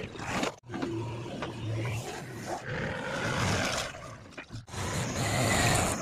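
Farm tractor diesel engines running, one hauling a trolley loaded with soil, in short stretches broken off abruptly twice.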